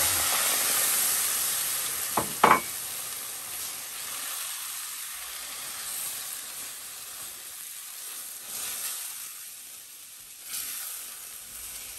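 Milk hitting a hot pan of ghee-roasted ground walnuts and almonds, sizzling loudly and then slowly dying down as it is stirred in with a spatula. Two short knocks about two seconds in.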